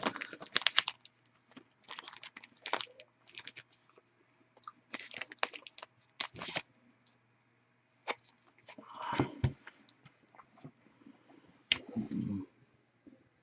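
Trading cards and their plastic sleeves and holders being handled: short bursts of rustling and crisp clicks, with pauses between them.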